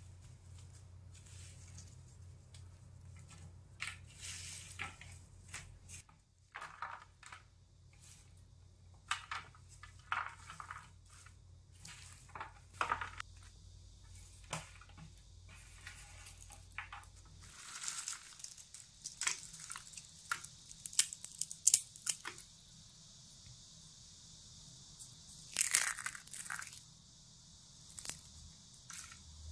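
Dried Cuban oregano (Plectranthus amboinicus) leaves crackling and rustling as hands pick through them and crumble them. The crisp crunches come irregularly and bunch up loudest a little after the middle and again near the end.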